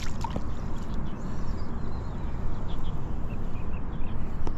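Steady low outdoor rumble with a few faint, short bird chirps about two to three seconds in.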